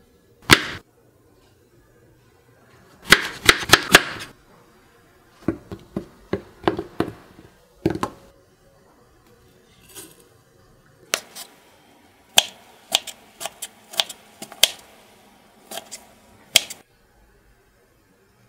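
Kitchen knife cutting a crisp apple on a wooden cutting board: sharp cuts and knocks of the blade on the board, in irregular clusters of quick strokes.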